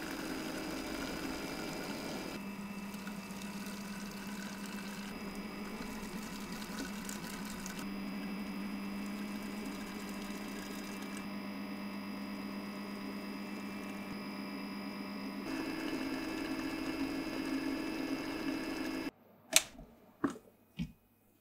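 Electric kitchen mixer running steadily as it beats egg into choux pastry dough, its hum shifting in pitch a few times. It stops suddenly near the end, followed by a few sharp knocks.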